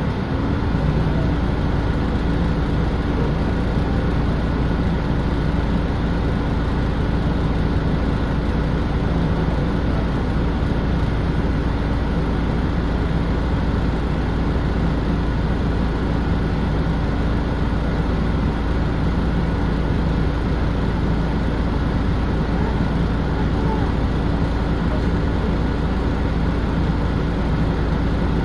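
Inside the cabin of a 2007 Nissan Diesel Space Runner RP city bus standing still: the diesel engine idles with a steady, even hum, settling just after the start as the bus comes to a halt at a traffic signal.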